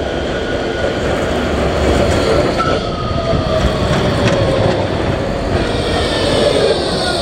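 A Nottingham Express Transit tram passing close by on street track, running with a rumble and several whining tones that fall slowly in pitch as it goes by. A sharp click about four seconds in.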